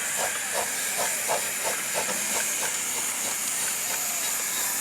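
Steam hissing steadily from a miniature steam locomotive, with a run of regular beats about three a second through the first half that then fade away.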